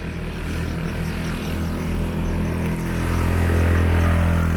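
An engine drone passing by, growing louder to its peak near the end and then starting to fade.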